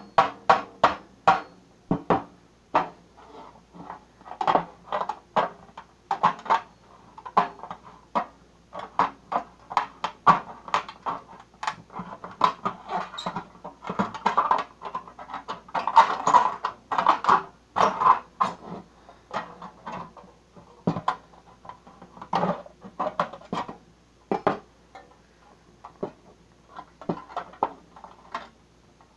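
A knife blade being driven through the thin sheet metal of a cookie tin lid: dozens of sharp, irregular metallic strikes, with short pauses between runs of blows.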